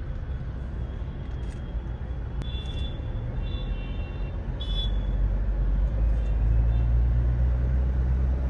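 Road traffic heard from inside a car in a jam: a steady low rumble of engines that grows louder about halfway through, with a few short high-pitched beeps.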